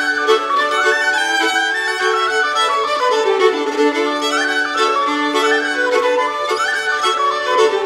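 Background instrumental music led by a fiddle melody.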